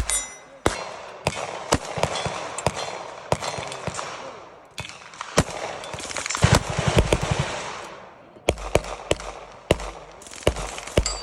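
Gunshots on a shooting range: a dozen or more sharp reports at irregular intervals, too many and too quick for one single-shot gun, so several guns are firing. The shots come over a steady background noise.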